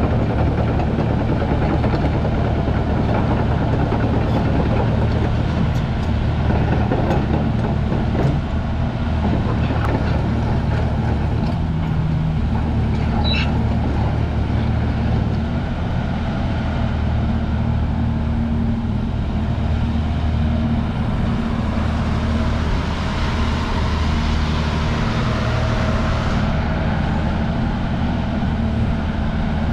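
Hyundai R340L crawler excavator's diesel engine running steadily as the machine moves, with a few sharp clanks from its tracks or hydraulics now and then.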